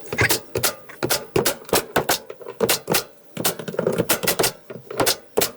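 Hammer driving 1-inch nails into plywood: a quick, irregular run of sharp blows, about four a second.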